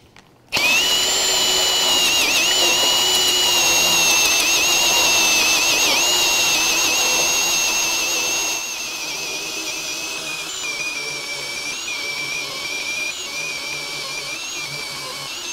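Cordless drill driver in low speed turning a 2-inch hole saw through a wooden board: a steady high motor whine over the sound of the teeth cutting, starting about half a second in. After about eight seconds it drops a little in loudness and pitch and wavers as the saw is rocked to clear chips from its teeth and keep them engaged.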